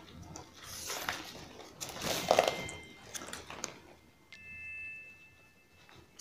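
Flat plastic craft wire being handled, pulled through and tightened into a box knot: rustling, rubbing scrapes and small clicks, loudest about two seconds in. A faint steady high tone sounds from about four seconds in.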